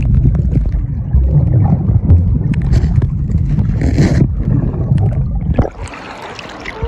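Underwater noise picked up by a submerged phone microphone as it is moved about: a heavy, muffled low rumble with scattered knocks. Near the end the phone breaks the surface and the rumble drops away suddenly.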